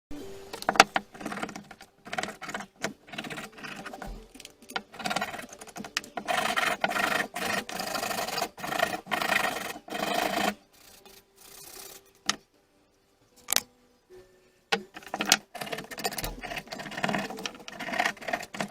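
Hand work on a rusty steel bar clamp: irregular rubbing and scraping strokes, densest in the middle, mixed with sharp metal clicks and knocks.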